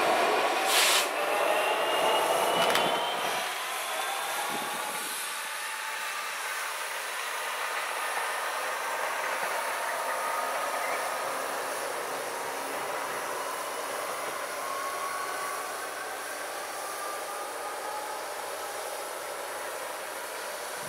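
GBRF Class 66 diesel locomotive, a two-stroke EMD engine, running light and receding, its engine sound and a faint whine fading away over the first four seconds. A steady hiss is left after it.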